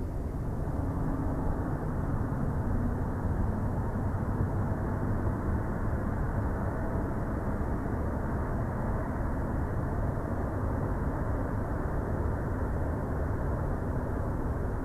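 Steady low outdoor rumble picked up by the nest cam's microphone, even and unbroken, with no distinct calls or knocks.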